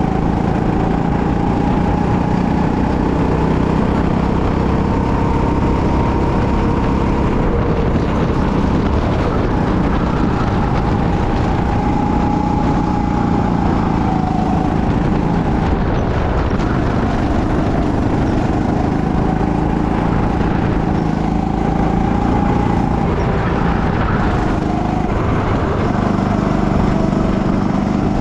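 Go-kart engine running continuously at racing speed, heard from the driver's seat; its pitch climbs and drops every few seconds as the revs rise on the straights and fall into the corners.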